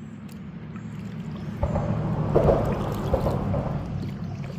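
Fast, high creek water rushing and splashing around a kayak. It swells about a second and a half in, with a few small knocks at its loudest, then eases off.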